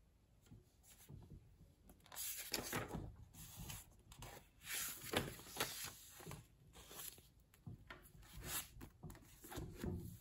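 Paperback book pages being leafed through by hand, a run of short, irregular paper swishes and rubs starting about two seconds in, as the book is flipped to its cover and closed.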